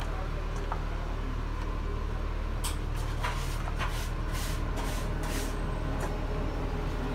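A steady low hum, like an electrical appliance or fan running, with a series of soft swishing handling sounds about three to five seconds in.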